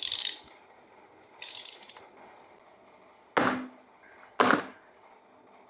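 Retractable charging cable's reel mechanism: two short ratcheting rasps as the cable is drawn out, then two sharp snaps about a second apart.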